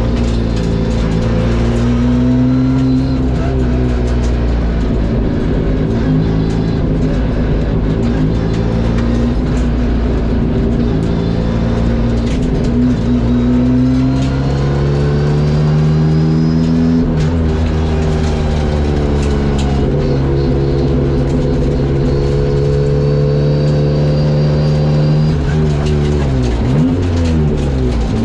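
Ford Escort RS Cosworth's turbocharged four-cylinder engine running hard on track. Its pitch climbs through the revs and drops at each gear change, several times over.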